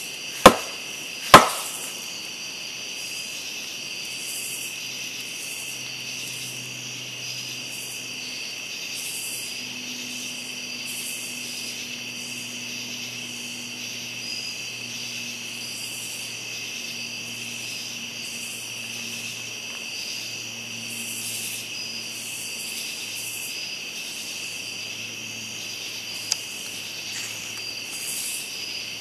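Two sharp wood knocks, a stick struck hard against a tree trunk, close together in the first couple of seconds, ending a three-knock sequence. After them a steady chorus of night insects, with a faint low drone from about six seconds in.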